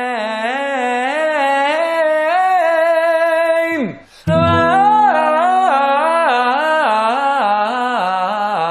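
A singer vocalising a stepwise scale up and then down on an open vowel, over a held chord that sounds at the start of each run. It is done twice, each run ending in a falling slide of the voice, as in a vocal warm-up exercise.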